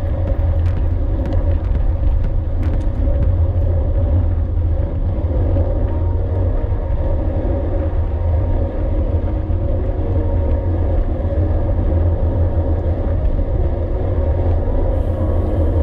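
Steady low wind rumble buffeting the microphone of a camera on a moving gravel bike, with tyre and drivetrain noise underneath and a few light clicks in the first few seconds.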